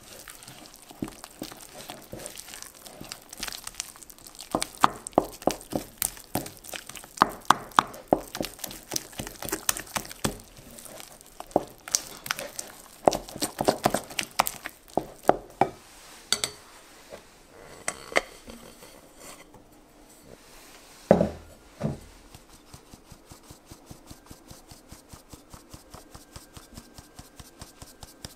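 Wooden spoon stirring a sticky flour-and-water dough in a glass bowl, with irregular clicks and knocks of the spoon against the glass and the squelch of the dough. A couple of louder knocks follow, then a steady run of light ticks, about five a second, as a metal mesh sieve is shaken over the bowl.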